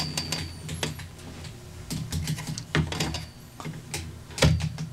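Plastic clicks and knocks of a gooseneck phone holder's spring clip as a phone is pushed into it and the flexible arm is bent, with the loudest knock near the end. The holder's clip cannot hold the phone.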